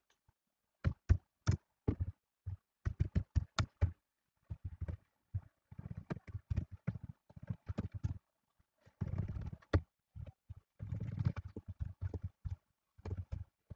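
Computer keyboard being typed on: irregular clicking keystrokes in quick runs, densest a little past the middle and again near the end.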